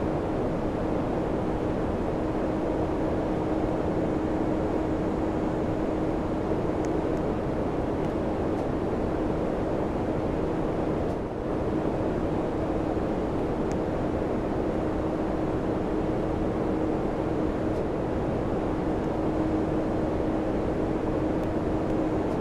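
Samsung air conditioner running steadily: a constant hum over an even rushing of air, with a brief slight dip about halfway through.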